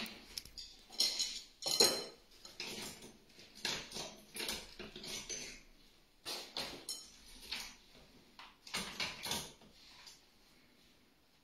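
Folding handcart wagon being handled: irregular clicks and clatter from its frame, handle and wheels, with a rustle of fabric, dying down near the end.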